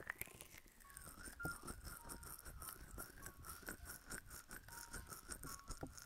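Fast, faint scratching and light tapping on a microphone, many small clicks a second, with a faint steady high tone underneath.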